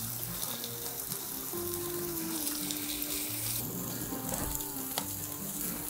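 Picanha and New York strip steaks sizzling as they sear over ripping-hot charcoal in a kamado grill, with soft background music underneath.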